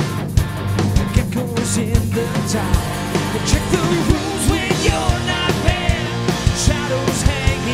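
Live rock band playing a song: electric guitars, bass guitar and drums, with a steady drum beat.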